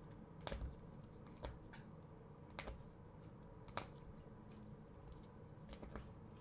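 Rigid plastic toploaders holding trading cards clicking against each other as they are handled and sorted: about eight faint, light clicks at irregular intervals.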